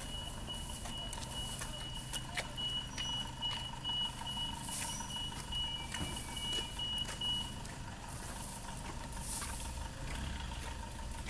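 Steady low rumble of road vehicles idling, with a high electronic beep repeating rapidly that stops about seven seconds in, and scattered light clicks and rustles.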